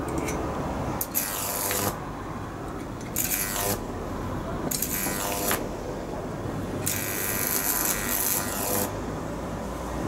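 High-voltage arcs crackling and buzzing across the wires of a Jacob's ladder powered by a microwave-oven transformer at about 5 kV. The arc sounds in four bursts of a second or two each, the longest near the end, over the transformer's steady mains hum.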